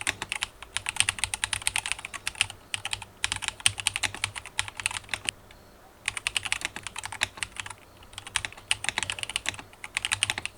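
Mechanical keyboard fitted with Akko Piano Pro switches being typed on quickly, in runs of rapid keystroke clicks with short pauses between them.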